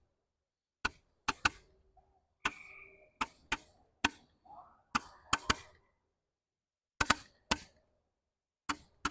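Three small 10-shot Smoking Alien Magic Wand Roman candles firing together: irregular sharp pops, each with a short hiss, some coming in quick pairs, with brief pauses between volleys.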